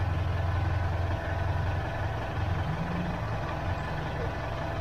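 Mitsubishi Montero Sport engine idling steadily, a low hum heard from inside the cabin.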